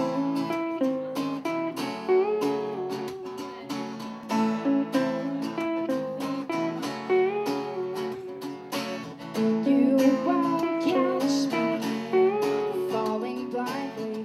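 Two acoustic guitars playing music together.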